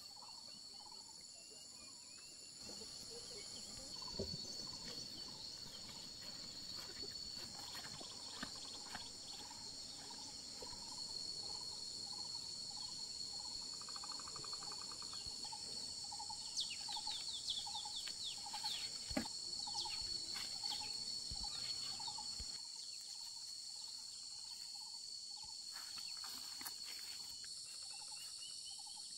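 Insects chirring steadily in several high, unbroken tones, with a faint repeating pulsed call joining midway. Scattered sharp clicks and rustles, busiest past the middle.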